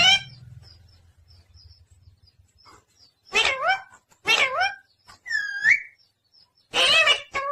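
Pet parrot calling: after a few quiet seconds, a run of short calls whose pitch rises and falls, about a second apart, with a clear whistled note curving up and down in between.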